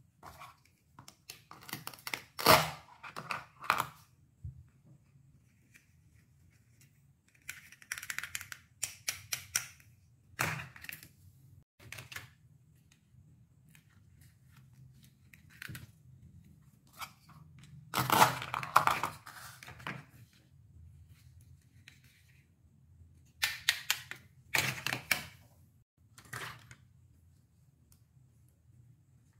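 Hollow plastic toy fruit and vegetable pieces clattering against each other and a plastic basket as they are picked up and handled, in several short bursts of clicks and knocks with quiet between.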